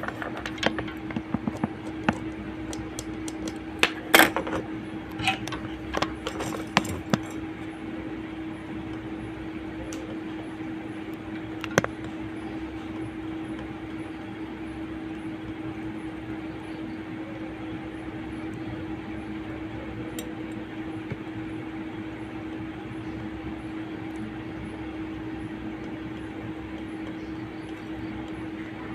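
Small metal repair tools clicking and tapping against a mobile phone's circuit board, in a flurry over the first several seconds and once more near the middle, over a steady hum with one held tone.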